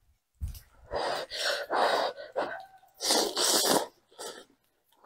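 Rice noodles in soup being slurped into the mouth: a run of airy slurps, the loudest, hissiest one about three seconds in, then a short one.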